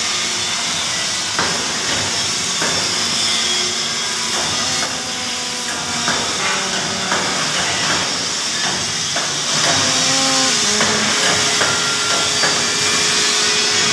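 MIG welding arc hissing and crackling steadily in a steel fabrication shop, with scattered knocks and clanks of steel and brief metallic ringing.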